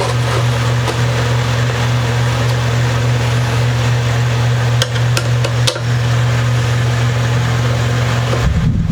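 A steady low hum throughout, with a few light clicks about five seconds in.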